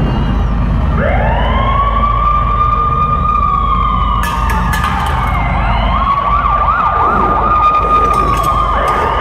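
Siren sound effect played through an arena's PA. It wails up to a high held tone about a second in, slowly sags, then breaks into a fast warbling yelp, over steady crowd noise.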